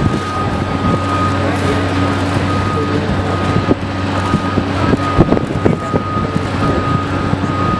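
Aircraft tow tractor's engine running steadily as it tows a Boeing 747-8 jumbo jet, with a steady high-pitched whine above it and scattered knocks.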